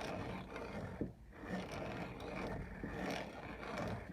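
Handling and adjustment of a 1950s Peter Dienes (PeDe) 520 manual conical burr coffee grinder: metal parts scraping and rubbing, with a sharp click about a second in, as the burrs are set to just touching for the finest grind.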